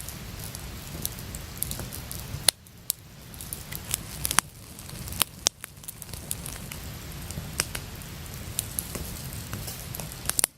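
Wood campfire crackling, with scattered sharp pops at irregular intervals over a low steady rumble.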